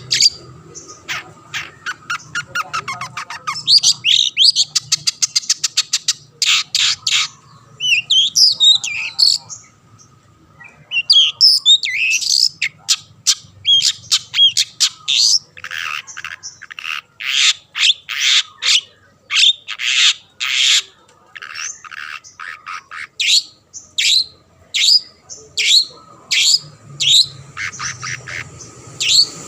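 Long-tailed shrike (cendet) in full song: a loud, rapid string of sharp, harsh notes and quick falling sweeps in bursts, with a fast trill a few seconds in and short pauses between phrases.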